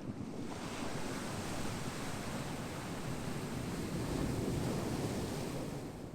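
Ocean wave breaking and washing up the shore: a wide rushing hiss that swells in about half a second in, is fullest about two thirds of the way through, and falls away near the end over the low rumble of the surf.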